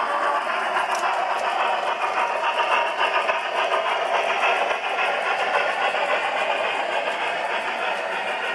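G scale model steam locomotive running along the rails, with a steady rolling, mechanical running noise that eases slightly near the end.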